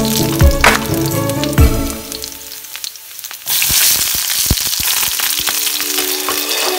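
Background music with a steady beat at first. Then, about three and a half seconds in, a loud sizzle starts suddenly and carries on: chopped onion and garlic frying in hot oil in a pan.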